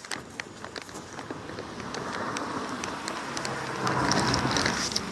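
A vehicle passing on the road: its tyre and engine noise builds up, is loudest near the end, then starts to fade.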